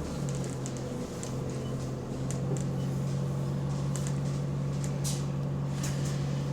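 Bus engine running with a steady low drone, heard inside the passenger cabin, with scattered light rattles and clicks. The bus has an exhaust leak.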